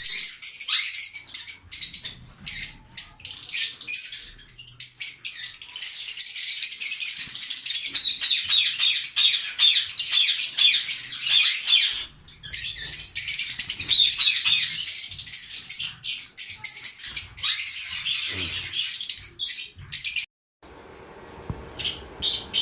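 Lovebirds chirping continuously, many rapid high calls overlapping, with a short break about 12 seconds in; near the end the sound cuts to a quieter stretch with only a few chirps.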